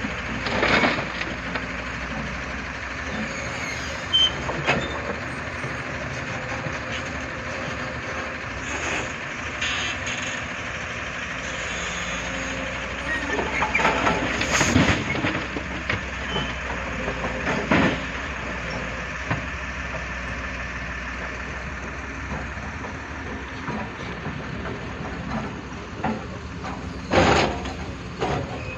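Heavy diesel machinery running steadily, with a few loud knocks spread through, the loudest near the end.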